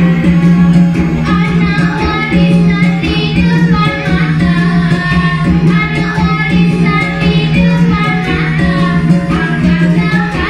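Live traditional-style music for a dance: a melody with singing over a steady low drone and a regular drum beat.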